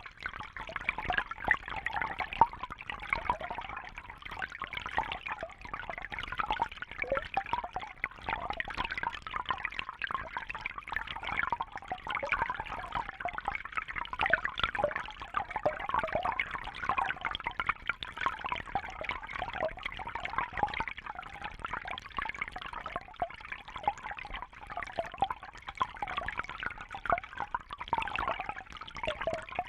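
Small babbling brook: water trickling and gurgling over stones, a steady busy splashing with many small bright plops.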